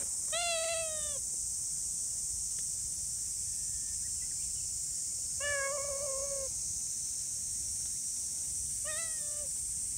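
Brown-tabby-and-white cat meowing three times: a falling meow about a second long near the start, a longer, level meow with a slight waver a little past the middle, and a short falling meow near the end.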